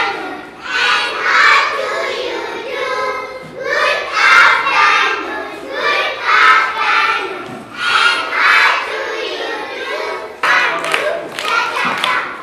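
A group of children's voices singing together in short phrases that come about every two seconds.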